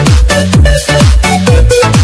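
Background music: an electronic dance track with a steady kick drum beating about twice a second.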